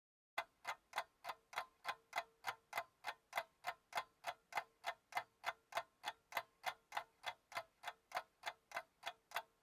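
Clock-like ticking, evenly paced at about three and a half ticks a second, with a faint steady hum underneath. It starts straight out of dead silence, like a ticking sound effect laid into the edit.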